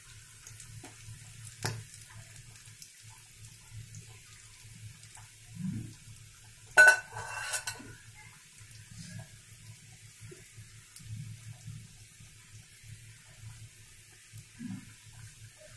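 Samosas deep-frying in hot oil in a steel kadhai on a medium flame, a faint steady sizzle and bubbling. About seven seconds in, a sharp ringing clank of a metal utensil against the pan, followed by a brief rattle.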